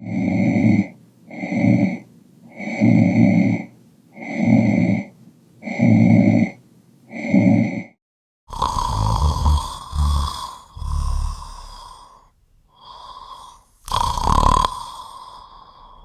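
A person snoring: six even snores about one every 1.4 s, then from about halfway a run of longer, irregular snores of a different tone, the loudest near the end.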